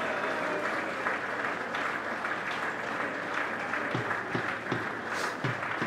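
Spectators clapping, heard as a steady crackle of many hands. From about four seconds in, regular low thumps come about two or three times a second.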